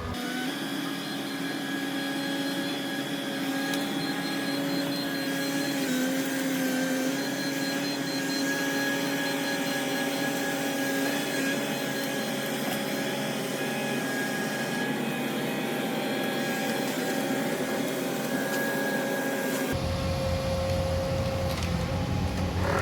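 Excavator engine and hydraulics running steadily, a constant hum with a whine over it that dips slightly in pitch now and then. A deeper rumble joins near the end.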